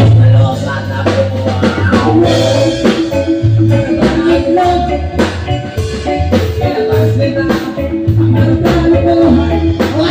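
Live band playing a song: electric bass, drum kit and keyboard, with regular drum hits under sustained notes.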